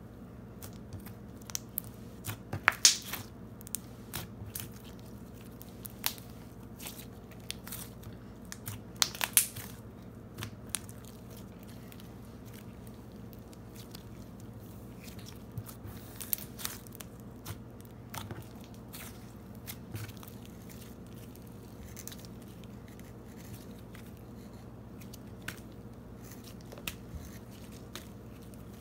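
Hands kneading brown Daiso clay into white slime: sticky crackles and small pops in scattered clusters, loudest about three seconds in and again around nine seconds in, over a faint steady hum.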